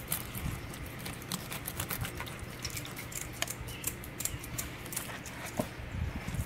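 Knife slitting open a porgy's belly on a wooden cutting board: a run of small, irregular crackling ticks and scrapes over a low steady hum.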